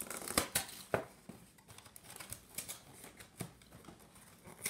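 Irregular clicks and light crackling of a cereal box and its packaging being handled, several sharp clicks in the first second and a half, then fainter scattered ones.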